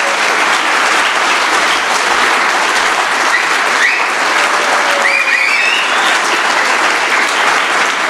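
Large audience applauding steadily, a dense even clapping, with a couple of short high rising calls from someone in the crowd about halfway through.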